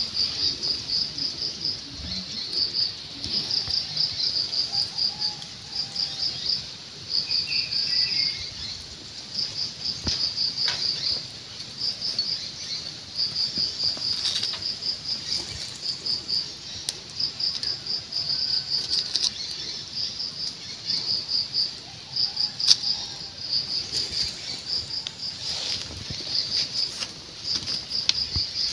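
Insects chirping high and shrill in trains of rapid pulses, about one train a second, repeating without letup. Occasional soft taps and rustles sound underneath.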